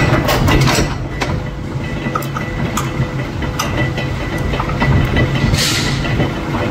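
Heavy forging press for heading hot bolt blanks running with a steady low rumble and hum, broken by scattered sharp metallic clicks from the steel tongs and workpiece. A short rushing burst comes about five and a half seconds in.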